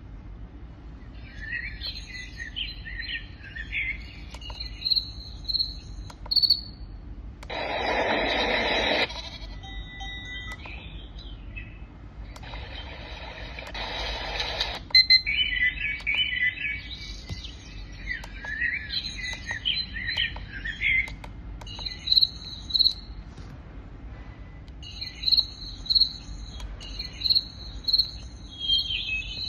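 Recorded bird song played back by a nature-sound machine: chirps and trills throughout, with two louder rushing bursts about 8 and 13 seconds in. Near the end, rapid repeated high chirps take over.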